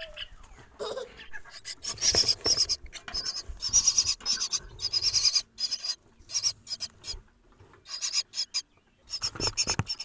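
Myna fledglings begging for food: repeated rapid, scratchy bursts of calls, densest in the first half and coming again in short runs near the end.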